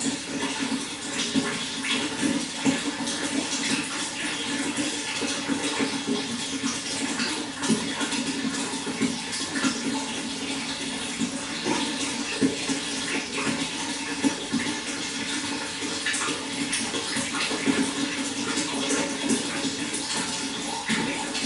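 Running water flowing and splashing steadily, a continuous rushing with many small irregular splashes.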